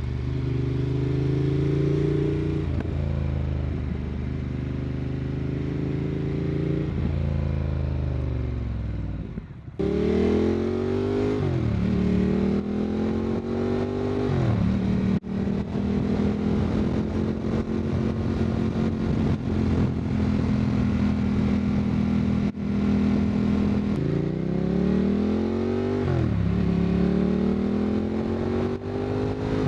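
Motorcycle engine and exhaust under way: the pitch climbs as it accelerates and drops back at each gear change several times, with a steady cruise in the middle and a brief let-off just before ten seconds in. It is picked up by a wireless mic on the outside of the rider's backpack with noise cancellation off.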